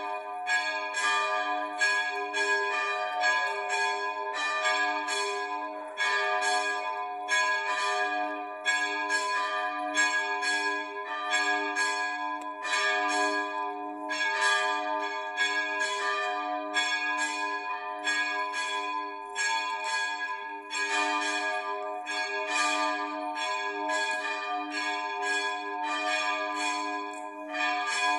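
Two hand-rung swinging church bells, cast in 1744 and tuned to a sharp D and an A-flat, ringing in full swing. Their strokes come in a fast, uneven succession with the tones of both bells overlapping. This is the peal rung as the signal for Mass.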